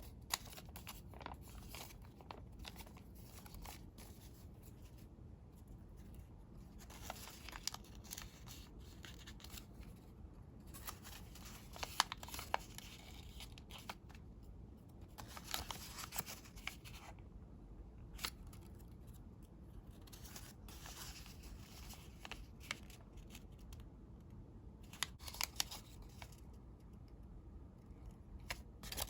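Colored origami paper being worked by hand at close range: intermittent crisp rustles and creasing strokes, with sharp clicks as the paper is pressed and handled.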